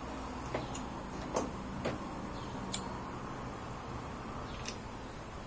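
A handful of short, sharp metallic clicks and taps, about five spread over a few seconds, from hand tools and engine parts being handled, over a steady low hum.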